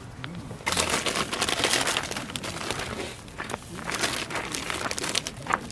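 Plastic wrapper of an instant-ramen packet crinkling and rustling as it is handled, starting sharply about a second in and loudest for the next second or so.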